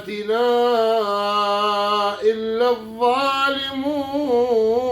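Man chanting Quran recitation in melodic tajweed style, drawing out each word into long held notes. A steady note gives way, after a short break about two seconds in, to notes with an ornamented, wavering pitch.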